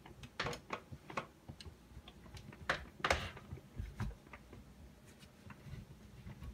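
Domestic cat chattering at prey it has spotted: a loose run of quick, dry clicks, a few a second, loudest about three seconds in.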